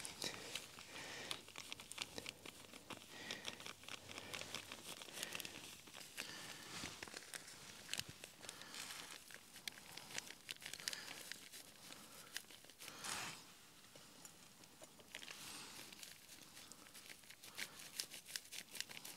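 Clear plastic zip-lock bag crinkling and rustling in the hands as ground coffee is tipped out of it into a filter. There are many small irregular crackles, with one longer, louder rustle about two-thirds of the way through.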